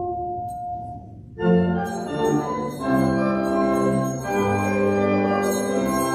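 Church organ: a held chord dies away about a second in. After a brief pause the organ comes in again with a series of sustained chords that change every second or so.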